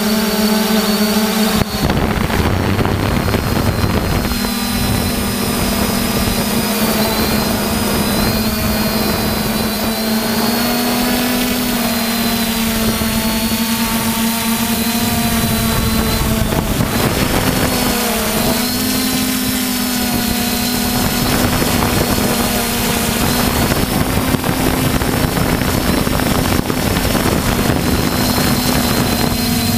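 Multirotor drone's electric motors and propellers whining steadily, heard from a camera mounted on the drone. The pitch wavers slightly as the motors speed up and slow down in flight.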